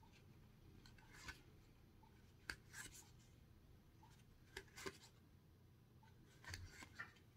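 Faint papery slides and flicks of card-game cards being leafed through one at a time, about seven soft brief sounds spread a second or so apart.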